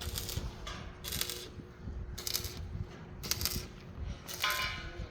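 Repeated metallic clinks and scrapes, about one a second, with a faint steady hum underneath.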